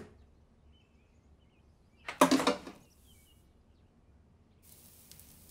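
Quiet kitchen room tone, broken about two seconds in by a single loud knock or clatter lasting about half a second.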